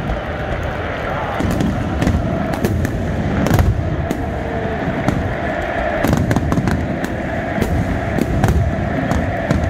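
Aerial fireworks bursting and crackling in a rapid, irregular string of sharp bangs, over the steady noise of a large stadium crowd. The heaviest bang comes about three and a half seconds in.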